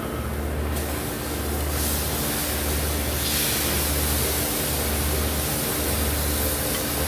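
Steady hiss and sizzle from a hot grill with pineapple slices cooking on the grates, growing louder about three seconds in. Under it runs a low hum that pulses about once a second.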